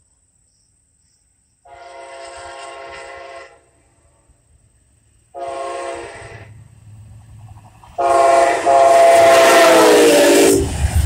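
Amtrak P42DC Genesis locomotive's multi-chime air horn sounding the grade-crossing signal: a long blast, a short one, then a long, loud blast whose pitch drops as the locomotive passes. Near the end the low rumble of the diesel and the wheels on the rails takes over.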